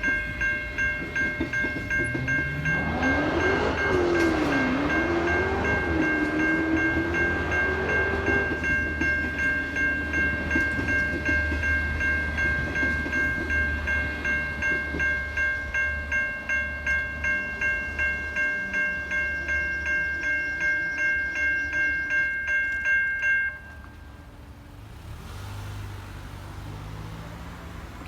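Safetran Type 3 electronic level-crossing bells ringing in a rapid pulsing rhythm over the low rumble of a passing standard gauge train. A wavering whine rises about 2 s in and fades by about 8 s. The bells cut off suddenly about 23 seconds in as the crossing deactivates.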